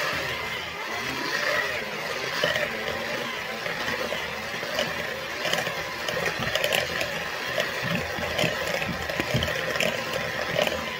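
Cordless battery-powered electric hand mixer running with a whisk attachment, beating eggs and cream cheese in a bowl. Its steady whirring wavers in pitch, with scattered clicks through the second half.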